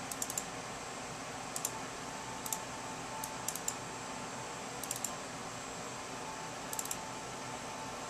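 Computer mouse clicking, in quick doubles and triples about six times, over a steady background hum.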